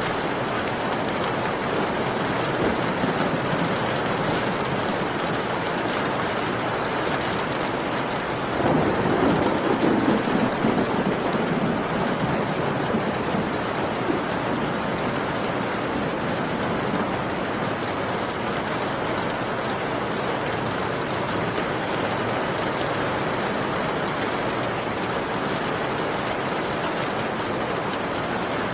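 Steady rain, with a roll of thunder that starts suddenly about a third of the way in, rumbles for a few seconds, then fades back under the rain.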